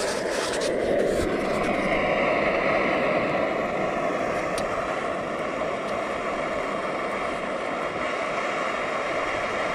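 Steady rushing roar of a canister camp stove burner, with morel mushrooms frying in butter in the pan on it. A few handling clicks come in the first second.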